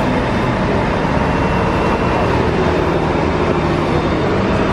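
Transit bus engine running close by as the bus pulls in, over steady road traffic noise.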